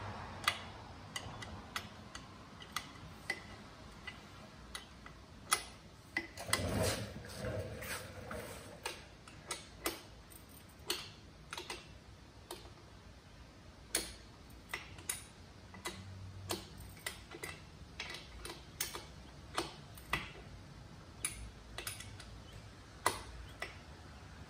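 Sharp metal clicks, roughly one or two a second, of a wrench working the rear-axle chain-adjuster bolts on a 2015 Kawasaki KX450F dirt bike as they are turned a few turns at a time to tighten the chain. There is a longer rustle and bump about seven seconds in.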